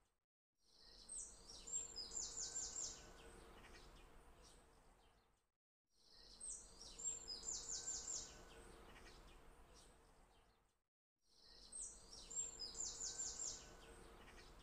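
Faint high-pitched chirping, with a quick run of about five chirps in the middle, in a short background recording that fades out and repeats identically about every five seconds.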